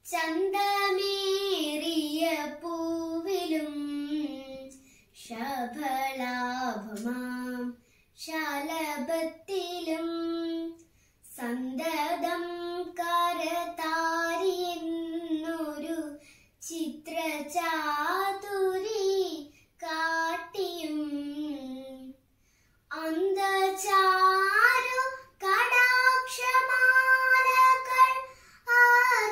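A young girl singing a prayer song solo and unaccompanied, in drawn-out phrases with short pauses between them, holding longer notes near the end.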